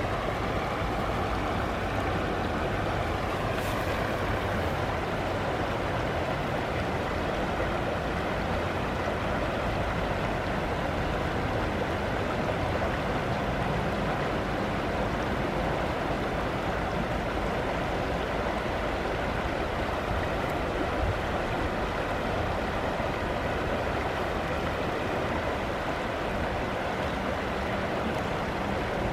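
Shallow river flowing over its bed, a steady babbling rush of water. A faint low steady hum joins near the end.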